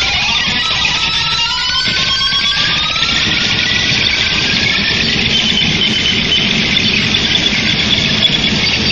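Distorted electric guitar played live through a loud PA, sliding up in pitch over the first three seconds, then held as a sustained noisy wash with a high squealing tone.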